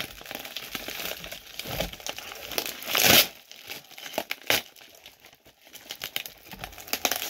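Plastic bag and brown packing tape crinkling and being torn off a tightly taped parcel, with a loud rip about three seconds in and a shorter one a little later.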